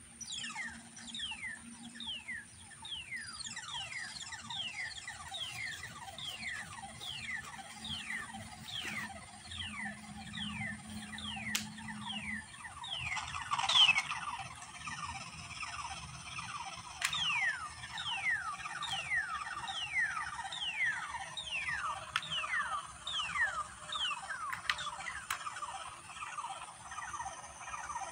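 Electronic sound generator putting out a string of quick falling chirps, each sweeping down in pitch, about one and a half a second, over a steady high whine. A low steady hum under it stops about twelve seconds in.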